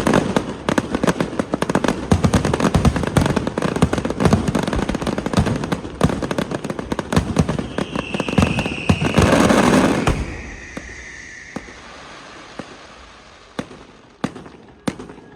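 Fireworks going off in a dense, rapid crackling barrage that stops about ten seconds in, with a whistling tone sounding near its end. After that there are only a few scattered pops.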